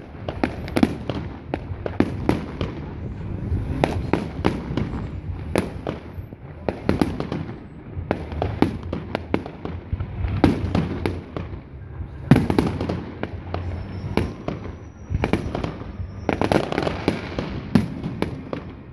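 Fireworks display: aerial shells bursting in quick, irregular succession, with sharp bangs and crackling throughout. The loudest bang comes about twelve seconds in.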